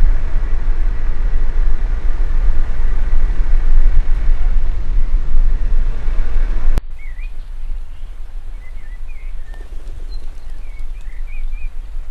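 Loud, steady low-pitched outdoor noise that cuts off abruptly about seven seconds in. Then comes a quieter steady rush with small birds chirping several times.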